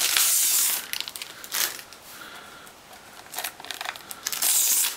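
Plastic packaging crinkling and rustling in several bursts as the router is unwrapped and handled, loudest at the start and near the end.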